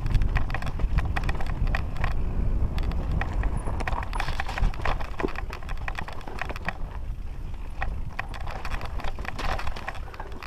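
Mountain bike clattering and rattling down a rocky trail, tyres knocking over loose stones and the frame and chain rattling in a constant irregular patter. A low rumble of wind on the microphone runs underneath.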